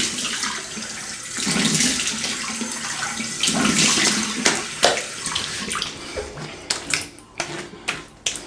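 Water splashing as a face is rinsed by hand to wash off alum, with two bigger splashes about one and a half and three and a half seconds in, then drips and small splatters toward the end.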